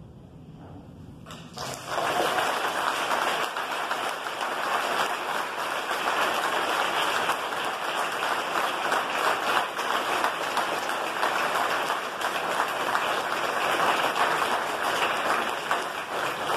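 Crowd applauding, breaking out suddenly about two seconds in and going on steadily.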